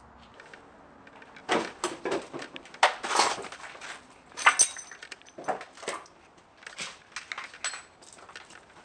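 Footsteps crunching and scuffing over debris on a littered floor: irregular clattering steps starting about a second and a half in, with a few louder knocks.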